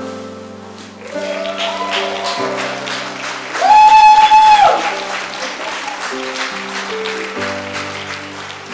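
Congregation clapping and cheering a baptism over sustained keyboard chords, with one loud, high whoop lasting about a second, four seconds in.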